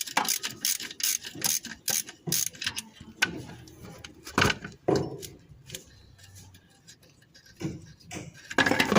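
Ratchet wrench clicking in quick, uneven strokes while undoing the mounting bolts of a car's AC compressor, then a few louder metallic knocks about four to five seconds in and again near the end.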